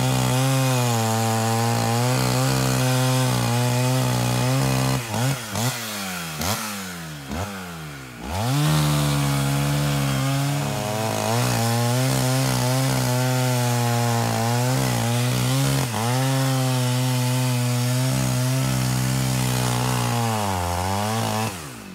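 Two-stroke chainsaw cutting wood at full throttle, holding steady under load. About five seconds in, it revs up and down several times before biting in again near nine seconds, and its revs fall away right at the end.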